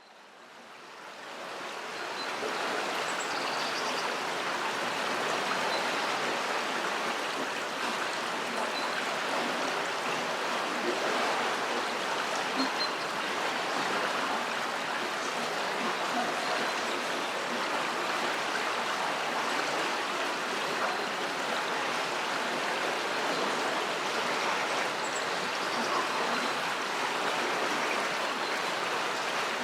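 River water flowing under a bridge: a steady rushing that fades in over the first couple of seconds.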